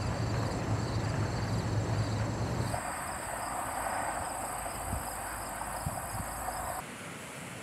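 Rural outdoor ambience: insects chirring steadily in high-pitched lines, over a low hum in the first few seconds. The mix shifts abruptly about three seconds in and again near the end.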